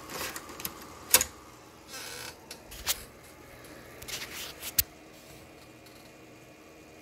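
A 3.5-inch floppy disk being handled and pushed into its drive: a series of sharp plastic clicks and rattles, the loudest about a second in. A cluster of lighter clicks follows around four to five seconds.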